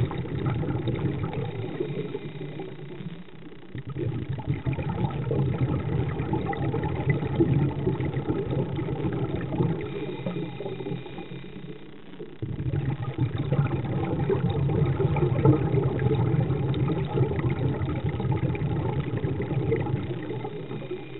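Steady low underwater rumble with a crackly texture, picked up by a diver's camera. It eases off briefly about three seconds in, sinks again about twelve seconds in, then comes straight back up.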